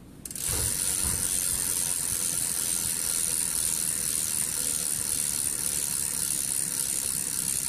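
Bicycle rear hub freewheel ticking fast and steady as a wheel spins and coasts, starting about half a second in, with a couple of low thumps near the start.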